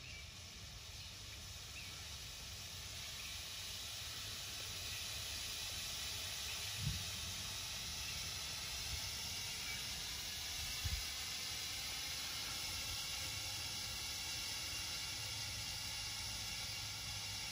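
Pyro High smoke sticks burning with a steady hiss that swells over the first few seconds and then holds. Two short low thumps come about a third and two thirds of the way through.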